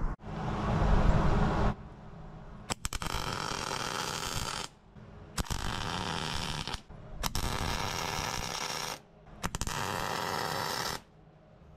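Arc welding on a steel cylinder cap: the arc crackles in four separate runs of a second and a half to two seconds, with short pauses between as the weld is stopped and restarted, filling in the cap's old holes. A louder noise fills the first second and a half.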